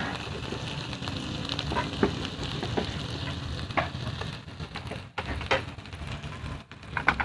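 Salmon fillets sizzling as they fry in oil on a grill plate, a steady hiss with scattered pops and crackles.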